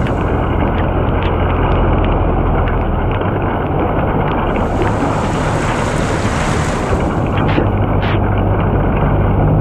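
Floodwater rushing in a strong current down a street, a steady loud roar of moving water with wind buffeting the microphone.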